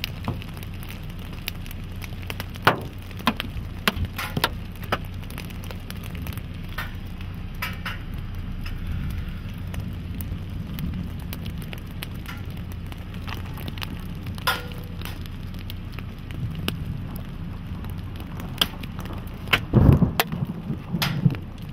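Scattered raindrops ticking and clicking irregularly on a vehicle during a thunderstorm, over a steady low hum, with a heavier low thump about twenty seconds in.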